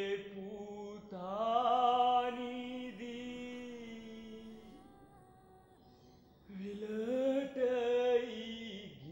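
A single unaccompanied voice slowly singing a Sinhala lullaby in long, drawn-out notes, one phrase beginning about a second in, a pause around the middle, and another phrase in the second half.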